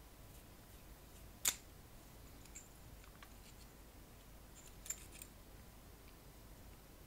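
Small metallic clicks from taking apart a wirewound rheostat with a screwdriver, as metal screws and the shaft-bearing block are handled: one sharp click about a second and a half in, and a lighter cluster of clicks around five seconds in, over a faint hiss.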